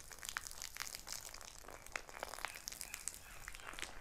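Faint crinkling and scattered small clicks of a water-filled fabric fuel bladder being gripped and tipped upright, with water running from its plastic nozzle onto dirt.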